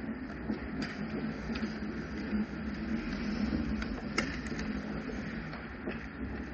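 Ice rink sounds of a pickup hockey game: a steady scraping rumble of skates on the ice, broken by a few sharp clacks of sticks and puck, the loudest about four seconds in.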